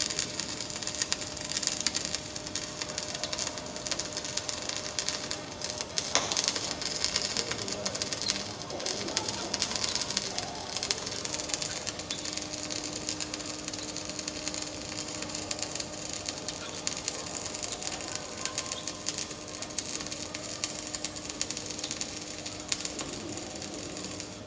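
MIG welding arc crackling steadily as a vertical-up bead is run, with a steady low hum underneath. The arc stops abruptly near the end.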